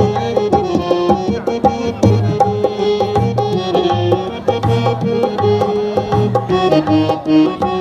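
Music with a steady drum beat.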